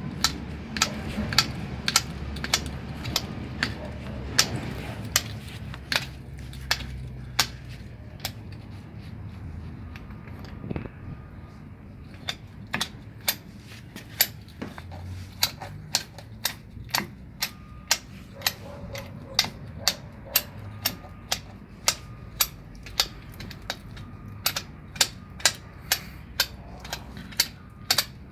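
Repeated sharp mechanical clicks, about two a second, over a low hum that fades after the first few seconds.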